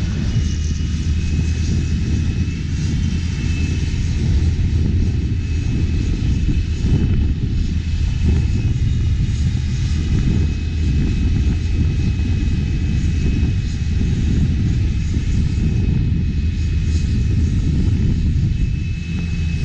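Cat 7.1-litre diesel engine of a Nuhn Lagoon Crawler running steadily at work, agitating a manure lagoon: a low, even hum with a thin high whine above it.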